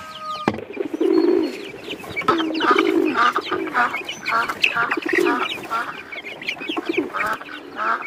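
Poultry calling: a run of short repeated calls, some drawn out, with a sharp click about half a second in.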